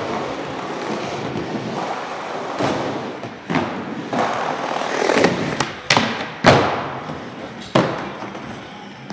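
Skateboard wheels rolling over plywood ramps, broken by sharp clacks and thuds of the board popping and landing, the loudest about six and a half seconds in. Just after it, the board slides along the metal edge of a ledge, ending in another landing about a second later.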